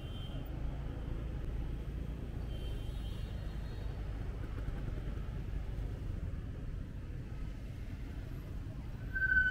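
City street traffic heard from a moving motorbike: a steady low rumble of cars, scooters and a city bus passing close by. A steady high tone comes in just before the end.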